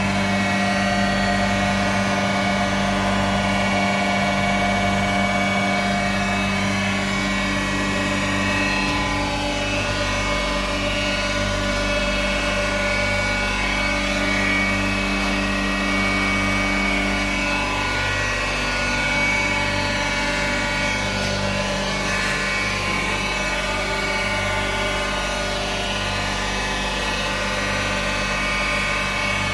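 Transformer oil filtration machine running: its electric motors and pumps give a steady hum with several fixed tones.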